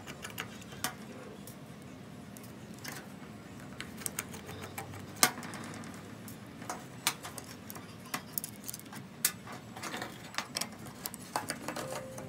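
Small clicks and taps of hand tools and parts during hands-on work on a smartphone, coming irregularly, with one sharper click about five seconds in.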